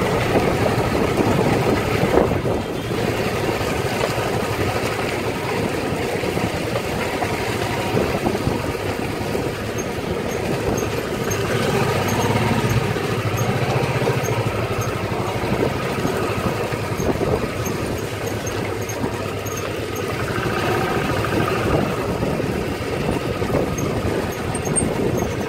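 Motorcycle engine running steadily while the bike is ridden at low speed.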